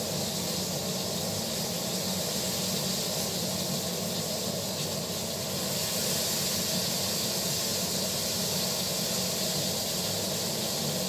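Steak sizzling steadily in a hot pan during searing, with a low steady hum underneath.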